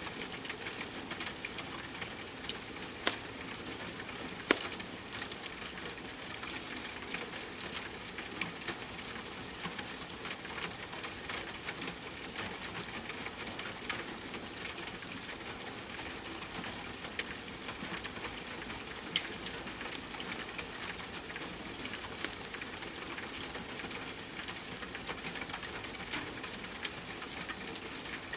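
Steady hiss of falling rain mixed with a wood fire crackling, its small pops and snaps scattered throughout, a few of them sharper and louder.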